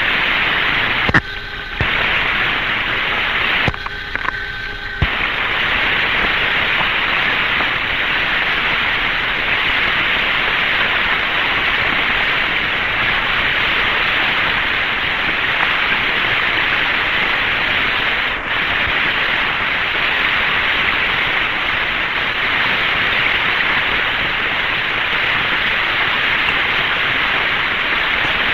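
Steady radio static hiss on an open air-to-ground voice channel of 1962 Mercury spacecraft radio, with no one transmitting. The hiss drops out briefly twice in the first few seconds with clicks, then runs on evenly.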